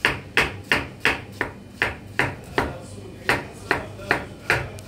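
Kitchen knife chopping zucchini on a cutting board, a steady run of sharp strikes about two to three a second, as the vegetable is diced small.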